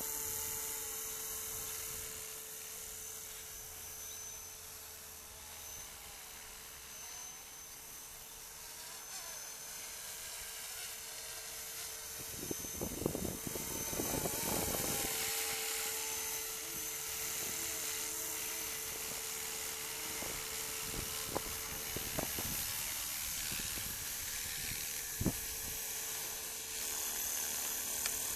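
500-size FlishRC Airwolf (Bell 222 scale) RC helicopter flying: a steady whine from the rotor and drive with one constant tone, its level swelling and easing as the heli moves. There is a cluster of low bumps about halfway through, and a few single ones later.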